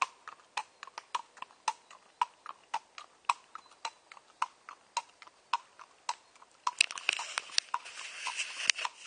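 A pony's hooves clip-clopping at a walk on a paved path: a run of sharp clops, about three to four a second. From about seven seconds in a rustling noise joins them.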